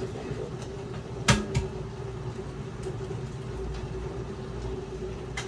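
A sharp knock at a kitchen counter about a second in, with a lighter one just after, over a steady hum.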